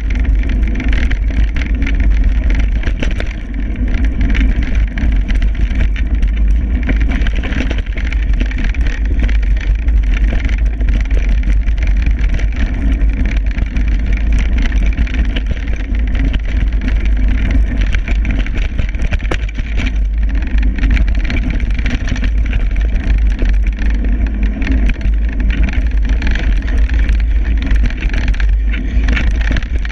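Wind buffeting a moving camera's microphone, with a heavy low rumble, over the tyre noise and rattle of a downhill mountain bike riding fast along a dirt trail. Many small knocks from bumps run throughout.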